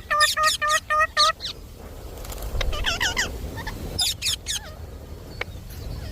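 Indian ringneck parakeet calling: a quick run of about six short, harsh, evenly spaced notes, about five a second, then after a pause two brief bursts of warbling, wavering calls.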